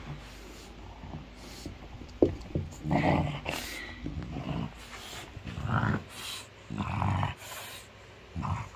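A French bulldog's short growls and grunts, in about six irregular bursts, as it mauls and shakes a plush toy.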